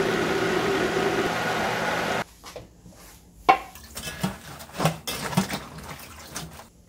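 A countertop blender runs steadily while puréeing chilli-and-garlic kimchi seasoning, then stops abruptly about two seconds in. After that, salted napa cabbage halves are turned over by hand in a steel bowl of brine in a sink, with water sloshing and a few splashes and knocks against the bowl.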